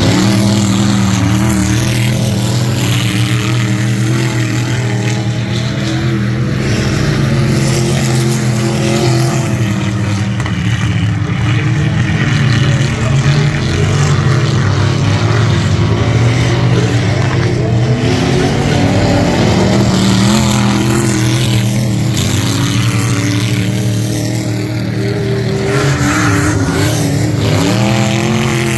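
Engines of vintage coupe-bodied dirt-track race cars running hard around the oval. Their engine notes rise and fall as the cars lift for the turns and accelerate out of them, with a rising surge near the end.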